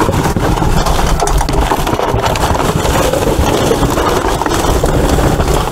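Rummaging through trash in a dumpster: plastic bags and cardboard boxes rustling and scraping close to the microphone, with a continuous low rumble underneath.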